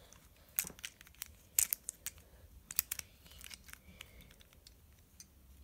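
Plastic pieces of a Calvin's Puzzle 3x3x5 cube clicking against each other and the core as it is reassembled by hand: a scattering of sharp, irregular clicks, the loudest about one and a half seconds in.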